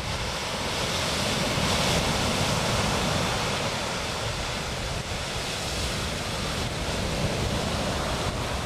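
Ocean surf breaking on a beach, a steady rushing wash that swells slightly and eases, with wind buffeting the microphone.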